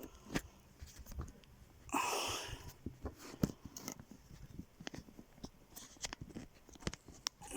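Scattered small clicks and knocks of a phone being handled and pushed into a makeshift holder on a tripod, with a brief rustle about two seconds in.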